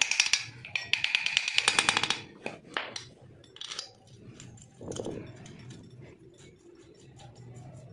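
Small hammer tapping rapidly and lightly on the rocker gear of an old Royal Enfield Bullet cylinder head, about ten ringing metal taps a second. The tapping breaks off briefly about half a second in and stops about two seconds in. Scattered metal clicks and a duller knock around five seconds in follow.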